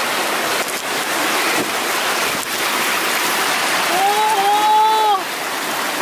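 Mountain stream rushing over rocks, a steady loud hiss of water throughout. About four seconds in, a voice lets out one long drawn-out sound lasting about a second.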